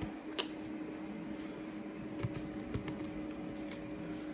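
A steady machine hum with a low, even tone, broken by a few light clicks and knocks.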